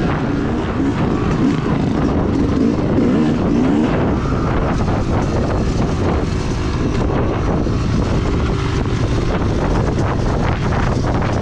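Onboard sound of a Yamaha YZ250X two-stroke dirt bike ridden along a dirt trail, the engine revving up and down through the first few seconds, with wind on the microphone throughout.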